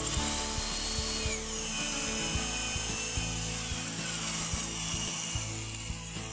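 Electric drill boring into the wooden edge of a door through the mortising jig's drill bushing. A steady high whine whose pitch drops about a second in and again around four seconds in as the bit bites into the wood, over background music.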